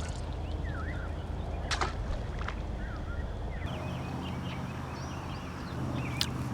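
Small birds chirping in short, quick calls over a low steady rumble, with a couple of sharp clicks.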